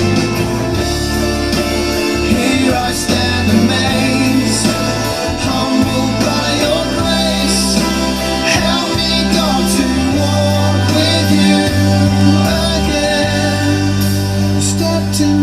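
Christian worship song: singing over instrumental backing.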